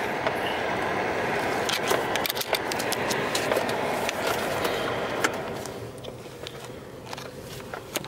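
Inside a vehicle's cab driving slowly over a snowy dirt track: steady engine and tyre noise with scattered clicks and rattles, quietening about five and a half seconds in.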